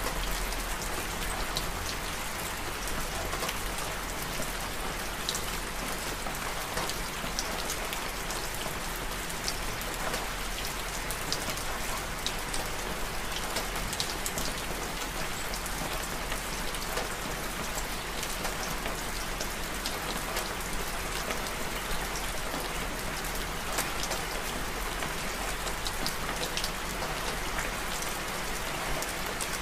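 Steady rain falling, an even hiss dotted with sharp taps of single drops.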